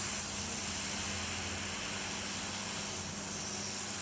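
Hot-air rework station blowing through a small nozzle: a steady airy hiss over a low electrical hum, heating a SIM tray's solder to free it from the phone's motherboard.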